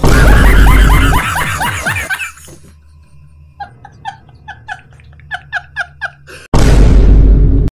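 Loud, distorted laughter sound effect: a burst of rapid laughing for about two seconds, then a quieter run of short, evenly spaced high-pitched laughs. A second or so before the end comes a loud burst of noise that cuts off suddenly.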